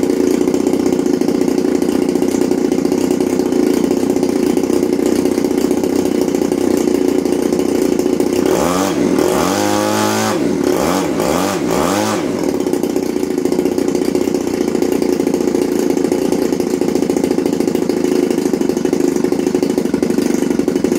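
RCGF Stinger 20cc twin-cylinder boxer two-stroke engine running on its first start, turning a propeller, with its carburettor needles not yet adjusted. It runs steadily, then is revved up and back down several times in quick succession about halfway through, and settles back to a steady run.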